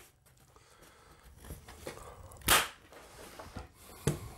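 Electric staple gun firing once, a sharp snap about two and a half seconds in as it drives a staple through fabric into a wooden frame; a lighter knock follows near the end.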